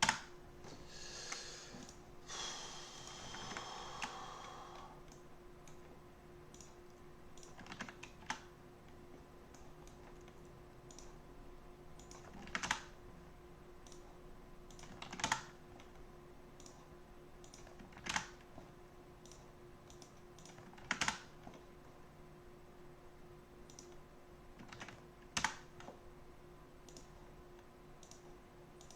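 Computer keyboard keystrokes and clicks, single presses a few seconds apart, over a faint steady hum. A brief high-pitched sound comes about a second in.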